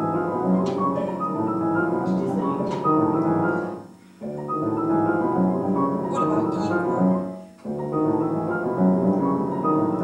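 Grand piano played: three similar phrases of sustained chords and melody, with brief breaks about four seconds in and again near eight seconds.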